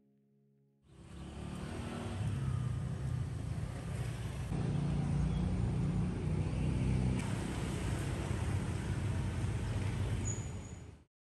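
Steady road-traffic rumble, a low even noise that fades in about a second in and cuts off abruptly just before the end.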